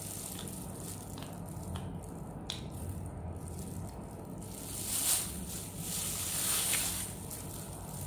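Thin disposable plastic gloves crinkling and rustling as the hands flex and rub together, with scattered small clicks and two louder rustles a little past the middle.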